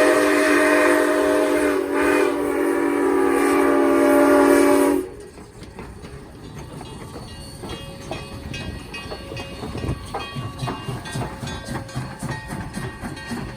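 Conway Scenic 7470's CN six-chime sounding one long full blast, a steady multi-note chord with a short dip about two seconds in, that cuts off suddenly about five seconds in. Then train wheels click rhythmically over rail joints, growing louder as the train rolls past.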